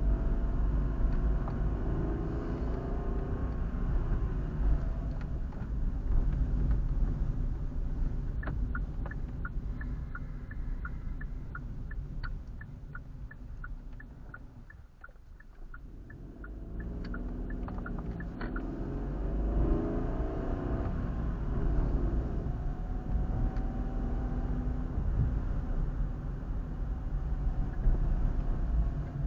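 Car engine and road rumble heard from inside the car through a dashcam, the engine pitch rising and falling as the car pulls away and drives on. For about ten seconds in the middle, a turn indicator ticks steadily about twice a second.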